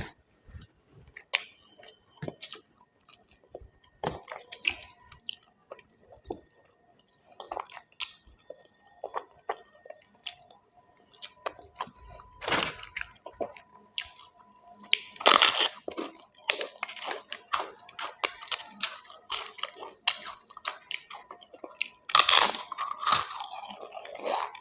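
Close-up chewing and crunching of food, irregular wet mouth clicks and bites, with several louder crisp crunches spread through.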